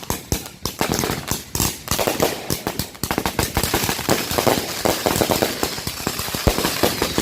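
A 500-gram consumer firework cake firing its grand finale: a rapid run of sharp bangs, several a second, thickening about three seconds in into a dense, continuous crackle.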